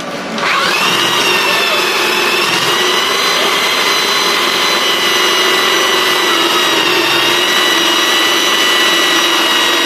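Electric drill driving a jigsaw adapter: the motor spins up about half a second in, then runs at a steady speed with a high whine.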